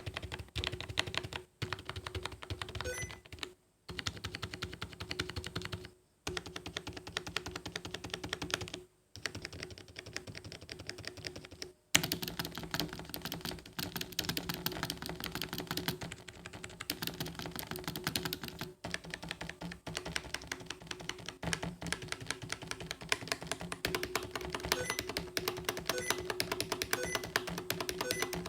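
Fast typing on a full-size membrane keyboard whose keys have been lubed with oil, a quick run of soft key clicks. It comes in several short runs broken by brief pauses, then goes on as a longer, denser run from about midway.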